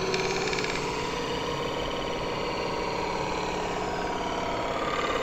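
Aluminum blank turning on a wood lathe with a spinning stick pressed against it, giving a steady buzzing chatter as the tool works wrinkles in the metal out against the form. The sound ends near the end.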